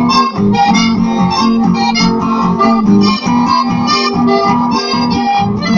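Instrumental chamamé played live on accordion with acoustic guitar accompaniment: a stream of reedy accordion notes over a steady rhythmic guitar.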